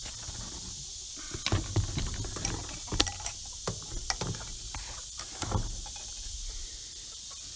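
Footsteps and handling knocks from a handheld camera being carried at a walk: irregular dull thumps and rustles about once or twice a second, over a steady high hiss.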